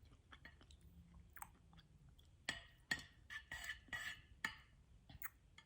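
A person chewing a mouthful of homemade sushi roll with soft, wet smacking and clicking mouth sounds. The smacks come thicker and louder about halfway through.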